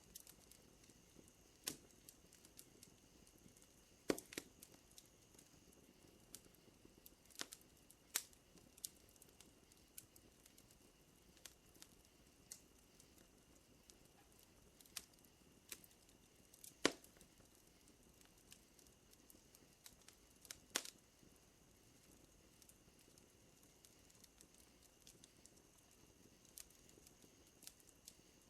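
Wood fire crackling softly, with scattered sharp pops, the loudest about four seconds in and again around seventeen and twenty-one seconds. Beneath it runs a faint, steady high trill of night insects.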